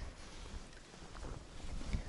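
Wind buffeting the microphone out on the ice: a low, uneven noise with no distinct events.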